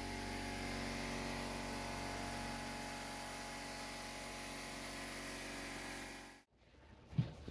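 Air compressor running steadily, a hum with a whine over a hiss, which cuts off suddenly about six seconds in; a single faint knock follows near the end.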